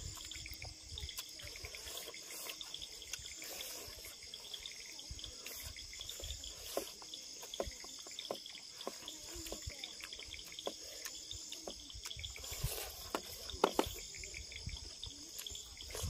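Close, wet eating sounds: chewing, lip-smacking and fingers mixing rice and fish, in short irregular clicks and squelches. Behind them runs a steady high chirring of night insects, such as crickets.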